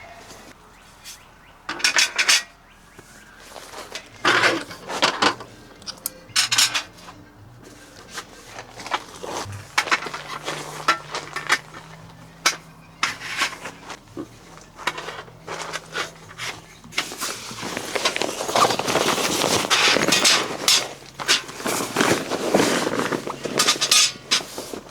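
Gear being handled by hand: scattered clinks, knocks and clatters, with a longer stretch of rustling and clatter near the end.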